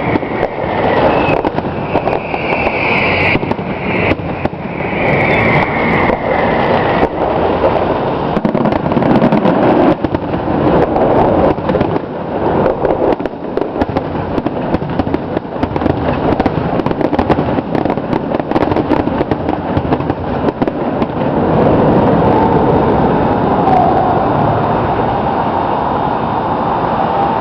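Aerial fireworks display: a rapid run of bangs and crackles, with high whistles falling in pitch over the first several seconds. The bangs thin out near the end.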